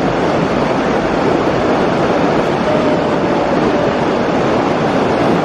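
Hot spring water rushing down rock cascades into a pool: a loud, steady rush of falling water.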